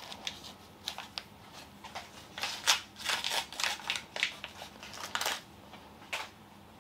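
Thin plastic packaging of Zuru Mini Brands miniatures crinkling and crackling as it is handled and opened, with irregular sharp clicks in short spells and pauses between.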